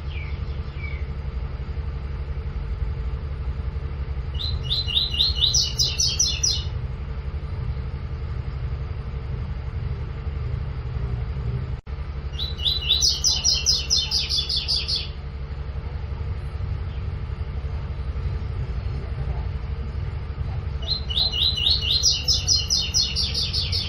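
Double-collared seedeater (coleiro) singing its 'tui-tui' song type: three phrases of rapid repeated notes, each about two seconds long, coming about every eight seconds. A steady low hum runs underneath.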